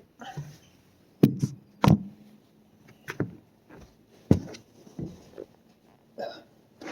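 Irregular knocks and thumps, about five sharp ones a second or so apart, with a short rustle near the end.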